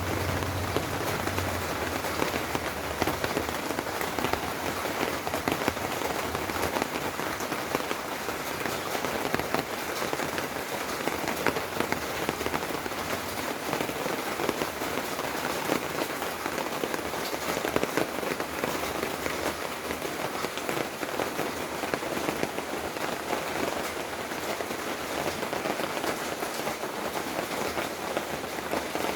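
Monsoon rain falling steadily: a dense, even hiss with many separate drop hits throughout.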